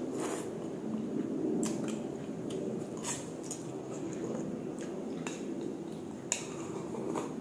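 Close-up eating sounds: chewing a mouthful of stewed-chicken rice noodles and sipping broth from a small bowl, with scattered light clicks of chopsticks and bowl.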